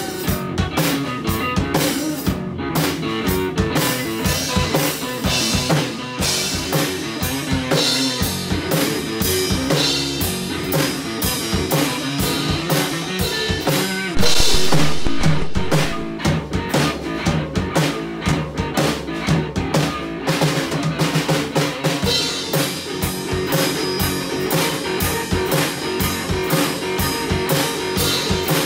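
A live rock/funk jam on drum kit and electric guitar, with snare, bass drum and cymbals driving under the guitar. The music gets much louder for about two seconds around halfway through.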